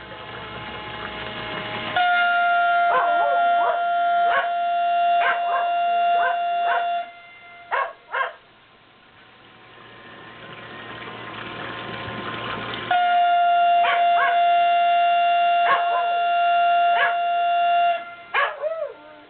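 Motor siren of a fire brigade call-up system sounding two long steady blasts, each about five seconds, that cut off sharply, with the sound swelling between them. It signals volunteer firefighters to muster. A pet dog howls and yelps along with the siren and in the gaps.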